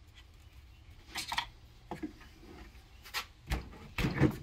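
Screwdrivers prying at the ground-through old wear ring inside a Sea-Doo 140 mm jet pump housing, steel tool tips knocking and scraping against the ring and housing. A few short clanks come separately, with a louder cluster near the end.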